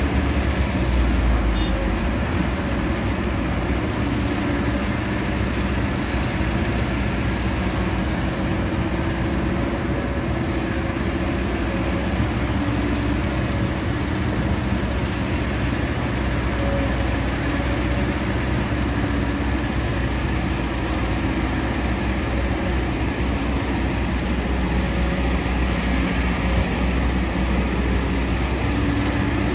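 Excavator running steadily while digging, a continuous machine drone with most of its weight in the low end and no distinct knocks or breaks.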